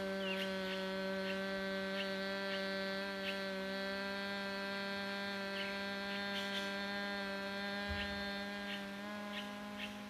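A woman humming one long, steady low note with her lips closed, as in humming-bee breathing (bhramari pranayama), slowly fading toward the end. Faint bird chirps sound over it.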